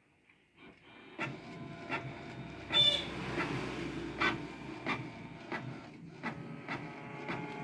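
Canon G670 ink tank printer starting a black-and-white print: after a near-silent first second, it runs with a steady mechanical whirr and sharp clicks every half second to a second. Near three seconds in there is one louder click with a brief high squeak. In black-and-white mode it is very loud.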